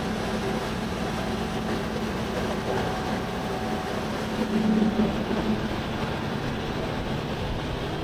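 Steady mechanical drone of running machinery, with a low hum that holds without a break.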